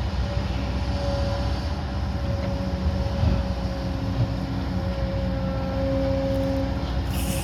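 Heavy construction machine's diesel engine running steadily with a low rumble and a steady drone.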